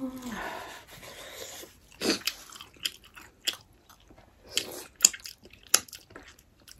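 Close-up eating sounds from two people eating pork momos with soup. A noisy wet stretch runs for the first second and a half or so. After that come separate sharp, wet mouth smacks and chewing clicks, about one every half second to second.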